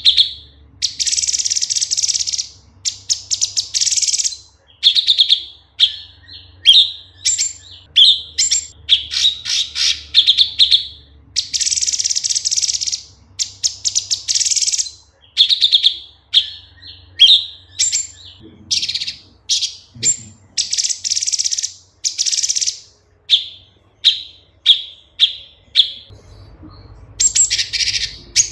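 Cucak cungkok leafbird singing a varied, loud song. Long rapid buzzy trills alternate with runs of short clear whistled notes, with a brief pause near the end before another trill.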